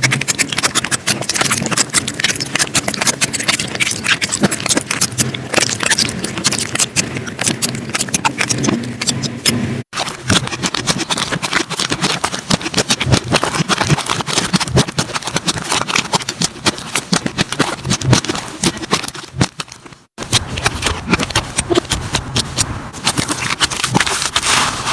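Slime being squeezed and worked by hand, making dense, rapid clicking and popping, with brief breaks about ten and twenty seconds in where one clip gives way to the next.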